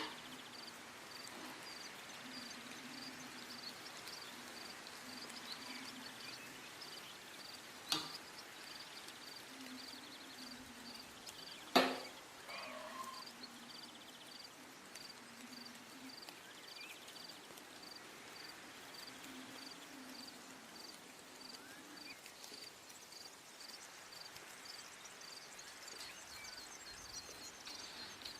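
Faint insect chirping, one high chirp about twice a second, over a low hum, with two sharp knocks, the second and louder just under halfway through.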